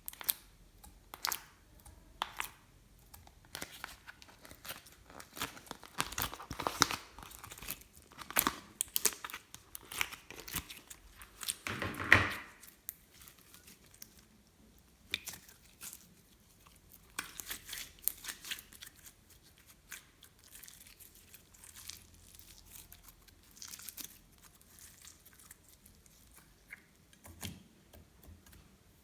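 Glossy slime being handled and mixed by hand: irregular sticky clicks and crackles, with a longer, louder crackle about twelve seconds in.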